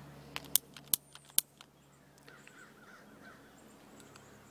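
Five sharp clicks in quick succession during the first second and a half, then crows cawing faintly.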